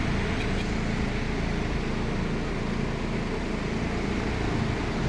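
Steady low drone of the climate-controlled broiler house's large ventilation fans running.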